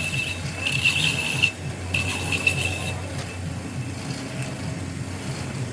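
Rasping, scraping sound of a tool worked against a surface, loudest in two spells over the first three seconds and fainter after, over a steady low hum.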